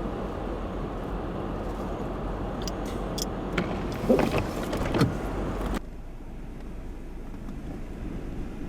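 Steady road and wind noise heard from inside a car driving in a blizzard, with a few clicks and squeaks about halfway through. About six seconds in, the noise drops suddenly to a quieter, duller level.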